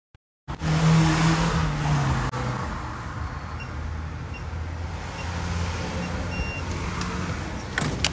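Car engine and traffic noise, cutting in suddenly about half a second in; the low engine hum dips slightly in pitch over the first two seconds, then runs on steadily.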